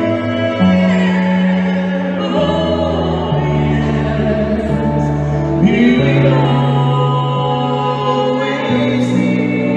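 Live band music: a man and a woman singing together over electronic keyboard, with long held bass notes, and a saxophone joining in.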